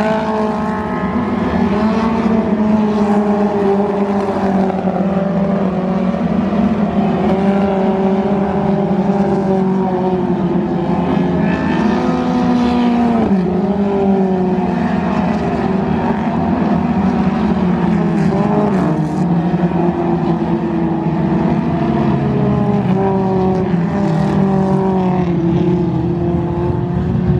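Dirt-track thunder cars racing, several engines running at once. Their pitch rises and falls in overlapping waves as the cars accelerate and lift around the oval.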